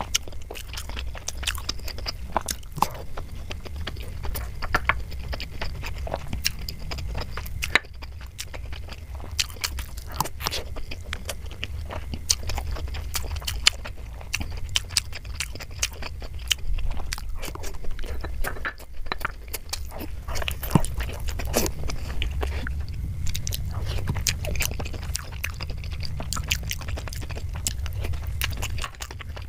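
Close-miked chewing and wet mouth sounds of someone eating Indian sweets: many small clicks and smacks over a steady low hum.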